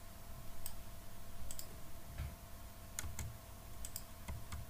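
Computer mouse clicking: several short sharp clicks at irregular intervals, some in quick pairs, over a faint steady hum.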